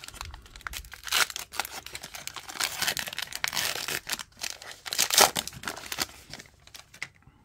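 Plastic-foil wrapper of a Match Attax trading-card pack being torn open and crumpled by hand: a run of crinkling, tearing rustles, some louder than others, that die away near the end.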